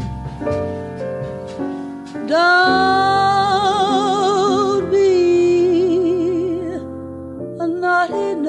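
Slow song from the soundtrack: a singer holds long notes with vibrato over instrumental accompaniment.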